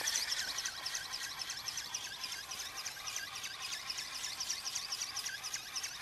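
RC ornithopter flapping its wings in flight: a high-pitched, rhythmic whirring at several beats a second, growing fainter over the first second or two as the model flies away.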